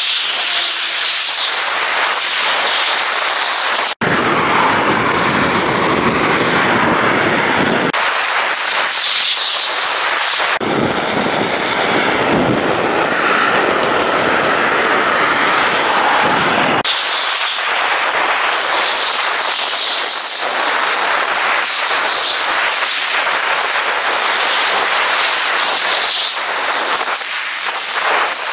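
Steady rushing noise of riding a bicycle along a path beside a highway: wind on the microphone mixed with tyre noise from traffic on the road alongside, with deeper buffeting in two stretches in the middle. The sound drops out for an instant about four seconds in.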